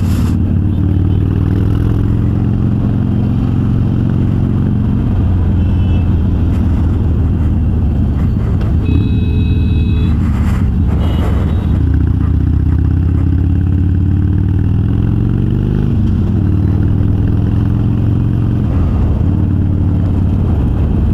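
Harley-Davidson Sportster's air-cooled V-twin running through Vance & Hines Twin Slash 3-inch slip-on mufflers with quiet baffles, on the move. The engine note is steady, with engine speed easing down and picking up again in a few places.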